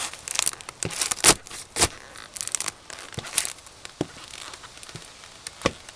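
Cardboard crate being crushed under German Bundeswehr Knobelbecher leather boots: irregular crackling and crunching of folding, tearing cardboard, busiest in the first three and a half seconds, then sparser crackles with a couple of sharp knocks near the end.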